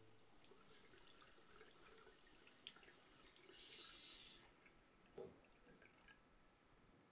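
Near silence: faint small-room tone at a bathroom sink with a few soft drips and ticks, and a soft knock about five seconds in.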